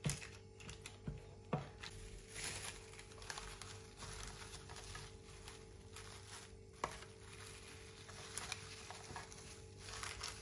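A metal spoon knocks lightly against a loaf pan a few times in the first couple of seconds. Then plastic cling film crinkles and rustles as it is stretched over the pan, with one sharp click partway through.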